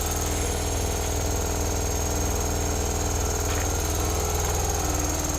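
Piston air compressor running steadily with a rapid pulsing beat and a steady high whine.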